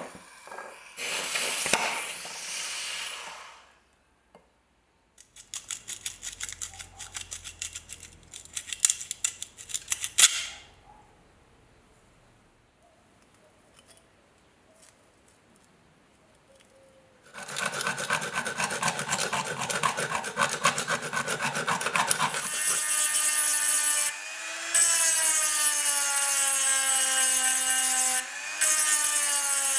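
Bursts of fast scraping strokes, then a small handheld rotary tool running at high speed with a sanding drum grinding rusty steel. Its whine dips in pitch twice as the drum is pressed into the metal.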